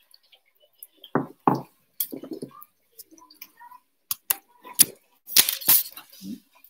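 A series of short, sharp clinks and knocks from kitchenware being handled, a crockery mug among it, with the loudest clatter about five and a half seconds in.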